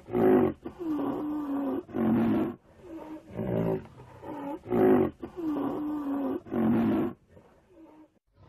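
A large animal's deep roars and growls, used as the rhino's sound effect: a run of calls of about half a second to a second each, the same sequence heard twice as a loop, falling quiet near the end.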